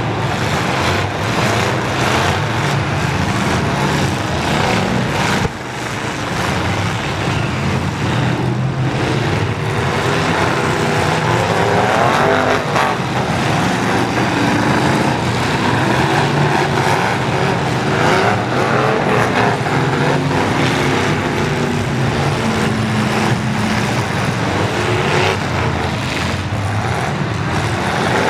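Several full-size pickup trucks in a demolition derby, their engines running and revving up and down at once, with scattered knocks of collisions among them.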